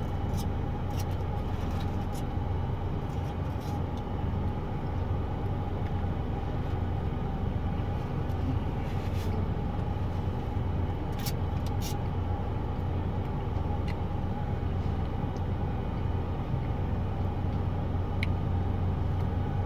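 Steady low rumble of a car's engine running, heard from inside the cabin, with a few short clicks and rustles now and then.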